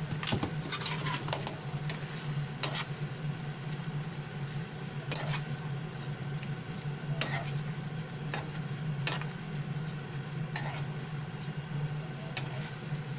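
Chicken breast, shimeji mushrooms and peppers sizzling in butter in a frying pan while a metal spoon stirs them, with about ten scattered clinks of the spoon against the pan. A steady low hum runs underneath.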